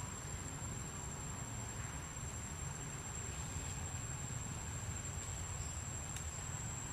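Outdoor ambience: a steady, high-pitched insect drone over a low rumble of background noise.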